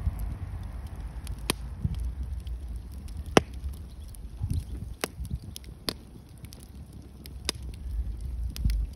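Wood fire burning, with several sharp pops and cracks from the logs, the loudest about a third of the way in, over a steady low rumble.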